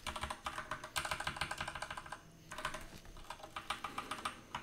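Typing on a computer keyboard: quick runs of key clicks in two bursts, with a short pause a little past two seconds in.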